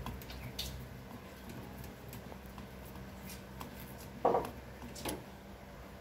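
Screwdriver and a gas water heater's plastic water-valve (diaphragm) housing clicking and scraping as they are handled, with one louder knock-like scrape about four seconds in and a smaller one just after.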